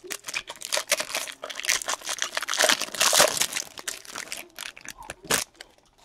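Trading-card pack wrapper being torn open and crinkled by hand, a dense run of crackling that is densest midway, with one sharp crackle near the end.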